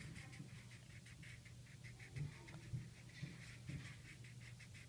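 A felt-tip marker scribbling back and forth on paper, colouring in with quick, even strokes at about five a second, with a few soft knocks.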